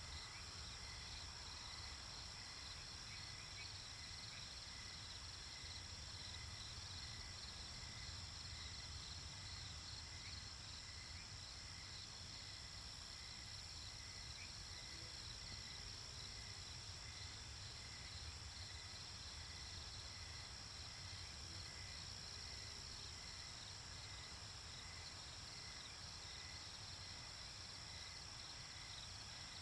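A night chorus of crickets chirping in steady, even pulses over a constant high insect drone, with a low steady rumble of noise underneath.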